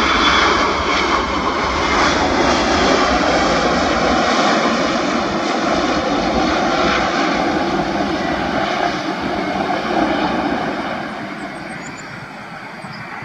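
Boeing 777-300ER's GE90 jet engines running loud during the landing rollout, a steady rushing roar with a faint high whine on top. About ten seconds in it fades to a quieter, more distant jet sound.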